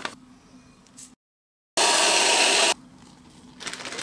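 A loud, steady hiss lasting about a second, starting and stopping abruptly, just after a brief moment of total silence.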